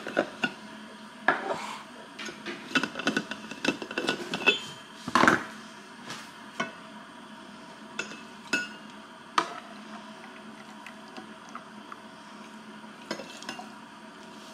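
Dishes and utensils clinking and knocking as food is prepared, a quick run of clinks for the first few seconds, then a few scattered knocks. A faint steady hum runs underneath.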